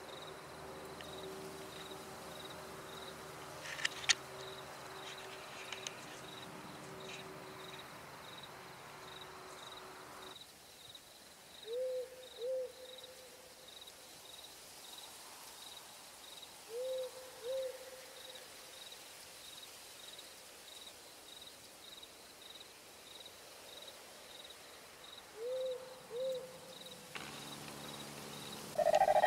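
Night-time outdoor ambience: steady, evenly pulsing cricket chirps, with an owl giving a pair of short hoots three times. There is a sharp snap about four seconds in.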